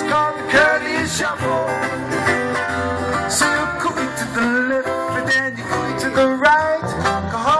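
Live music from a small band led by acoustic guitar, playing steadily.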